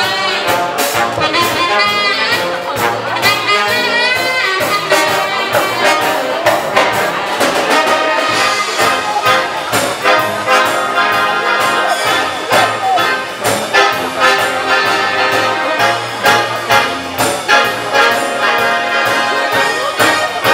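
Military wind band playing: tubas, trombones, trumpets and saxophones together over a steady drum beat.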